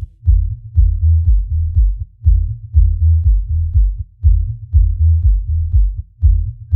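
Electronic music stripped down to a deep, pulsing bass line that steps between low notes in a repeating pattern, with nothing higher in the mix.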